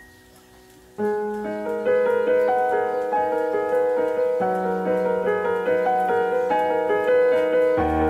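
Background piano music, coming in about a second in with a steady flow of notes over held bass notes.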